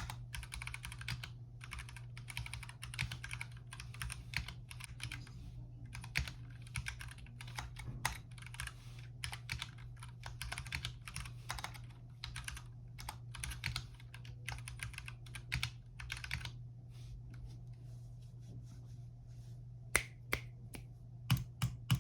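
Typing on an RK61 Pro 60% mechanical keyboard with red linear switches: a fast, steady run of key clacks that thins to a few scattered presses about sixteen seconds in. A low steady hum runs underneath.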